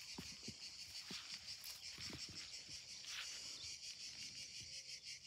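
A steady, high-pitched chorus of summer insects with a fast, even pulsing, and a few faint soft knocks underneath.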